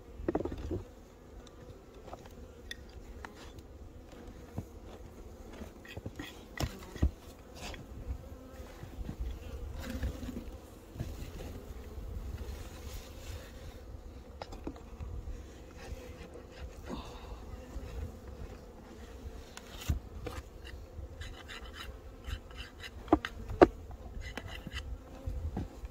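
Honeybees at the hive buzzing steadily, with occasional knocks and clicks, the loudest a pair of sharp knocks near the end.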